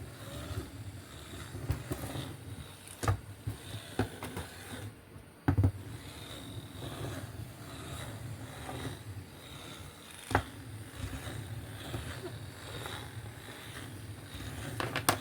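Small electric wheel motors of a soldered remote-control car kit running steadily, with a few sharp clicks scattered through.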